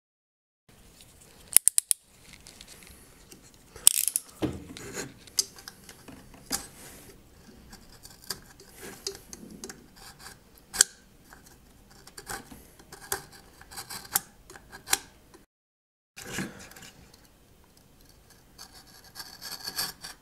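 A razor blade and then a hobby knife scraping and cutting thin wooden deck planks in short strokes, with sharp ticks between the scrapes.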